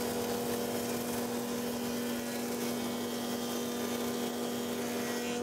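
Thickness planer running with its dust extractor as a board feeds through the cutter head: a steady machine drone with a strong hum.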